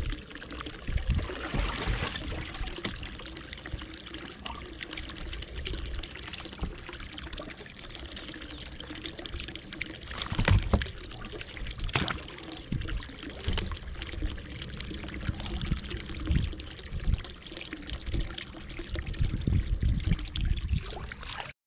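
Water pouring and trickling, with irregular low thumps underneath.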